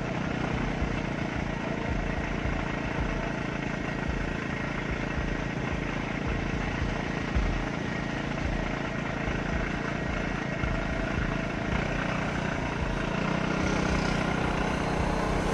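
A motor vehicle's engine running steadily, with a slight rise in level near the end.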